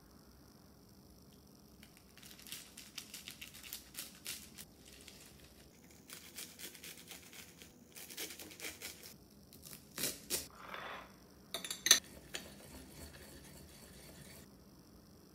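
Knife chopping fresh garlic chives on a cutting board, in several quick runs of crisp cuts, with a couple of sharper knocks later on.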